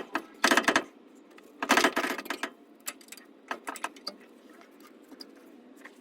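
Ratchet wrench clicking rapidly in two bursts, about half a second in and around two seconds in, with a few single clicks after, as a bolt on an exhaust hanger is undone.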